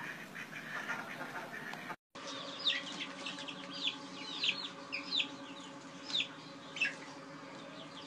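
Ducks calling for about two seconds, then a flock of young chicks peeping: many short, high, falling peeps over a steady low hum.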